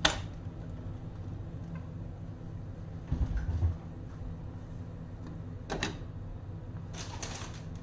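Kitchen handling sounds over a steady low hum: a sharp tap at the start, dull thumps about three seconds in, then a glass pot lid set onto a steel saucepan near six seconds, followed by a brief rattle.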